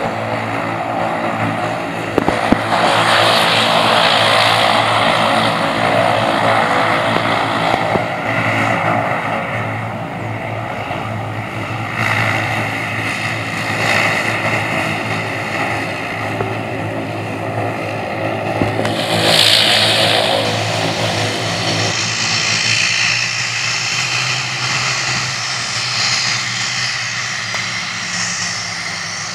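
ATR 42 twin-turboprop's engines running as it taxis: a steady propeller drone with a hissing whine over it. The sound changes about two-thirds of the way in, the low drone dropping and the hiss rising.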